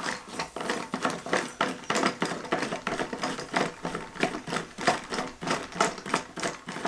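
Plastic compression fittings on a PVC irrigation tee being twisted and handled: a rapid, irregular run of small plastic clicks and rattles as a fitting is turned on its thread.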